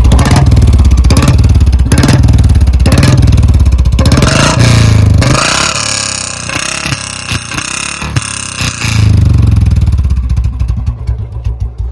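Royal Enfield Bullet's single-cylinder BS4 engine, fitted with a C-bend header pipe and a mini Punjab silencer, revved in repeated blips. Between revs the exhaust pops and crackles irregularly as the throttle closes. The exhaust note is loud.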